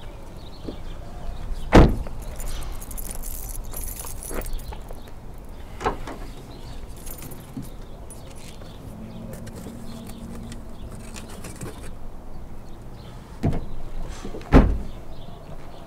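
A car door shut about two seconds in and the trunk lid slammed shut near the end, with a few lighter knocks and handling sounds at the open trunk between them.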